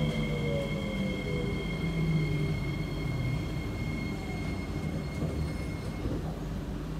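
Metro train cabin noise as an SMRT C151B train slows into a station. There is a low rumble of wheels and car, and the traction motors whine down in pitch over the first couple of seconds. A steady high-pitched tone cuts off about six seconds in.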